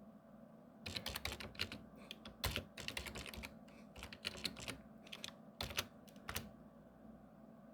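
Keys being typed on a Commodore home computer keyboard in short irregular runs of clicks, entering the command to load and run a BASIC program from a 1581 disk. The typing starts about a second in and stops about a second before the end.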